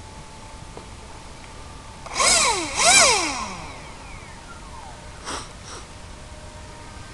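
Model plane's electric motor and propeller whining up and falling back in pitch twice in quick succession, two throttle bursts as the plane is hand-launched. Two short, fainter bursts follow a couple of seconds later.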